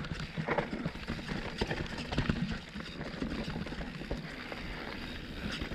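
Full-suspension mountain bike rolling slowly over a rocky dirt trail: tyres crunching over stones, with irregular knocks and rattles from the bike several times a second.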